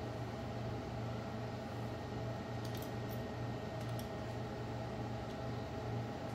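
Steady low hum with a hiss underneath, and a few faint light clicks a little before halfway through from small metal parts, nuts and copper bus bars, being handled on the battery cells.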